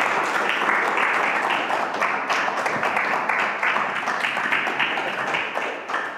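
Audience applauding: a steady patter of many hands clapping that fades out near the end.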